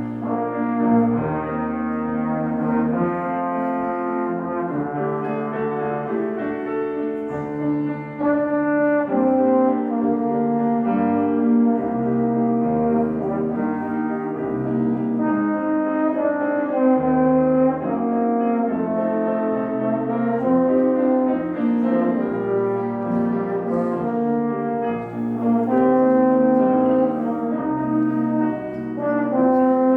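Live brass ensemble, with horn and trombone sounds, playing a slow piece in sustained chords over a moving bass line.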